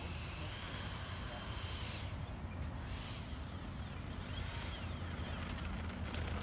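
Twin 80 mm electric ducted fans of a Freewing F-14 Tomcat model jet whining faintly at taxi throttle, the pitch rising and falling over the first two seconds and then dying down, over a steady low rumble.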